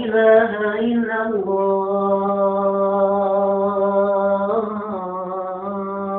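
A man's voice calling the adhan, the Islamic call to prayer, drawing out a phrase of the shahada line in one long breath. The pitch is ornamented at first, then settles into a held note.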